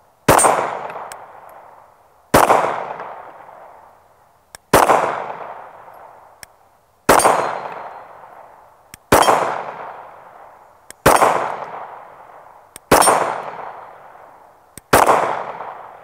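Glock 48 9mm pistol fired eight times in slow aimed fire, about one shot every two seconds. Each shot is followed by a long ringing tail that fades out before the next.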